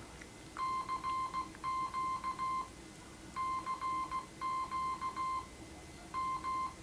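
Morse code beeps from an Arduino-keyed QRP transmitter beacon: a steady tone switched on and off in dots and dashes, in three runs with short pauses between.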